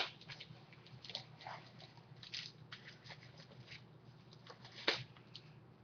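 Faint rustling and crinkling of a taped mailing package being handled and opened by hand, with scattered small scrapes and taps and a louder crinkle about five seconds in. A low steady hum lies underneath.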